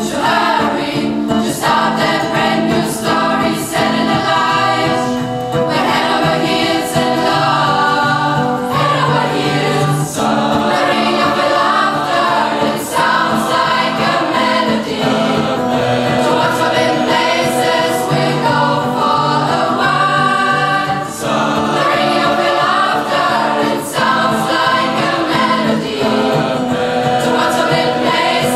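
School choir singing a song over a steady beat.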